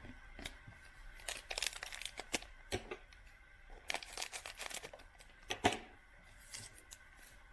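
Crinkling and tearing of a foil trading-card pack wrapper being handled and pulled open, heard as scattered short crackles.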